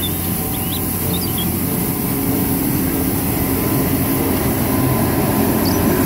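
Compact street sweeper working the road: a steady loud running noise from its engine and suction, with the rotating side brushes scraping the asphalt.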